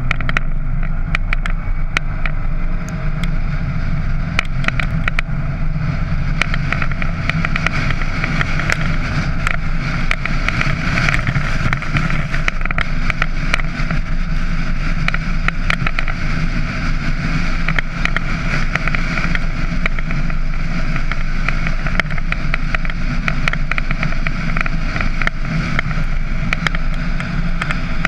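Ford Ranger pickup driving on a paved road, heard through a camera mounted on the outside of its hood: a steady low rumble of engine and tyres under a rushing hiss of wind across the microphone, broken by frequent short sharp clicks.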